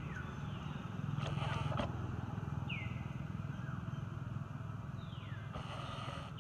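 An animal's short high calls, each falling in pitch, repeating every two to three seconds over a steady low hum. Two short stretches of hiss come about a second in and near the end.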